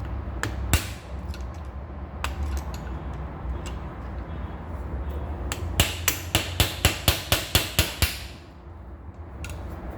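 Hammer striking the lower steering-column bearing race on a 1976 Corvette steering shaft, trying to drive it off: a few single blows, then a quick run of about a dozen strikes at roughly five a second. The race won't budge, which the owner puts down to it being rusted to the shaft.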